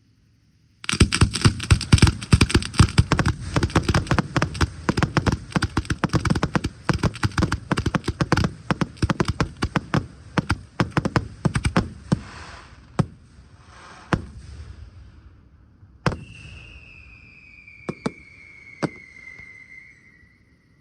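Aerial fireworks going off in a rapid barrage of sharp bangs, several a second, starting about a second in. The barrage thins after about twelve seconds into a few single bangs. Near the end a long whistling tone falls slowly in pitch.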